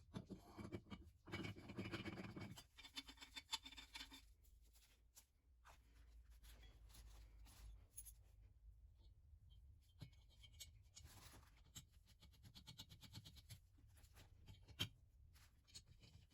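Faint scratching and rubbing in short bursts, with a couple of light clicks.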